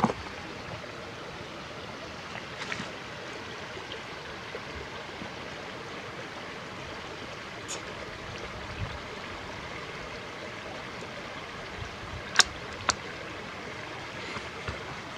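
Suppressed Ruger American Rimfire bolt-action .22 rifle firing a single .22 Short round: one short, sharp crack, so quiet for a gunshot, with a fainter click about half a second later. A few faint clicks come earlier as the bolt is worked, over a steady rushing hiss.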